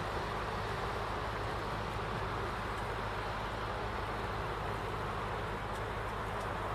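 A boat's engine running steadily under way, an even low hum, with a constant hiss of water and wind over it.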